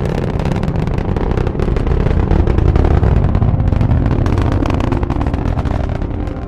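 Rocket engine sound of a landing burn: a loud, crackling rumble that swells to a peak about three seconds in, then eases off.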